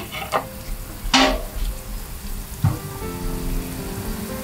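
Chana dal, urad dal and cashew pieces frying in hot coconut oil: a steady sizzle with a few short, louder spitting bursts, the biggest about a second in.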